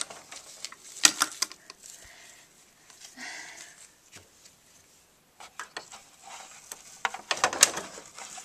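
Plastic dolls and toy dollhouse furniture being handled, with scattered light clicks and knocks and a brief rustle partway through.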